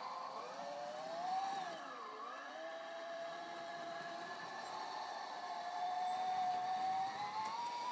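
Drive motors and gearing of a 1:8 radio-controlled PistenBully 300 Polar snow-groomer model whining as it crawls on its tracks, the pitch following the throttle: it dips about two seconds in, then rises and climbs higher near the end.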